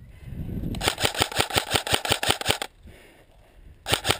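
Airsoft electric gun firing on full auto: a rapid, even burst of sharp clacks lasting about two seconds, then a second short burst near the end.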